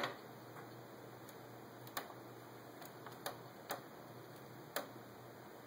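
Faint, irregularly spaced clicks from an office printer, about eight in five seconds, over a faint low hum.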